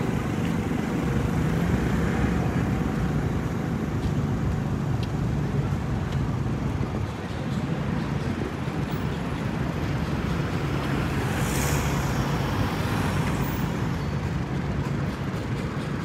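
Steady city street traffic: a continuous rumble of motor vehicles, with a brief hiss about two-thirds of the way through.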